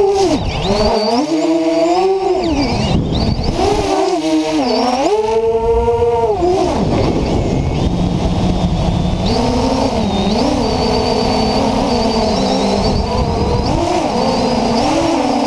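FPV quadcopter's electric motors and propellers whining, picked up by the camera mounted on the quad itself. The pitch swoops up and down with the throttle through the first seven seconds or so, then settles into a steadier, lower buzz with small wobbles.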